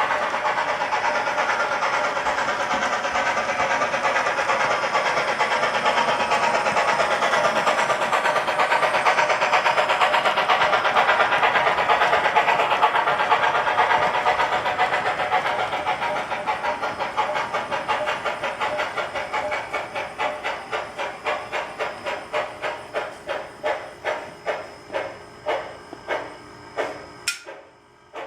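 S-gauge model train running on DCC, with a fast rhythmic hissing beat that slows into separate beats, about two a second and spreading apart, as the train slows to a stop. A sharp click comes just before the end.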